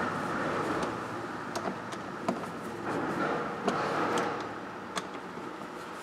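Phillips screwdriver snugging screws into a plastic dash panel: light scraping and a few small clicks over a steady background hum.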